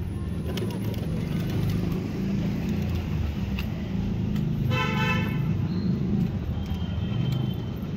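A steady low hum throughout, with one short vehicle horn toot, about half a second long, near five seconds in.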